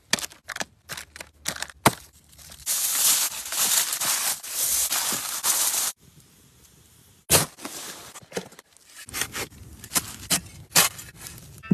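Fridge restocking by hand: quick clicks and knocks of containers and packaging being set down and handled. In the middle is about three seconds of loud, even rustling. Near the middle is a pause, then a sharp knock and more scattered clicks.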